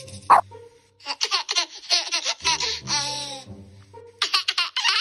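A Boston terrier gives one short bark just after the start. From about a second in comes a played recording of a baby laughing: runs of quick, high-pitched giggles with a brief pause near the end.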